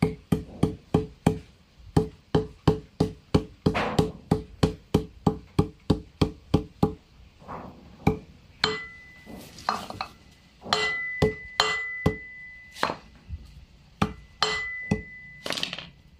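Hammer blows driving a wheel bearing into a motorcycle's front alloy wheel hub, metal on metal. Quick, steady taps, about three a second, each with a short metallic ring; after about seven seconds they slow to scattered, harder knocks, some ringing on at a higher pitch.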